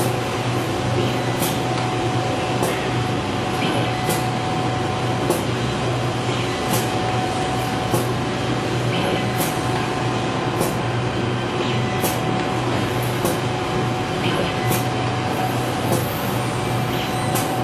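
Automatic soldering machine running: a steady mechanical hum with a thin steady tone over it, and a sharp click repeating evenly about every second and a third.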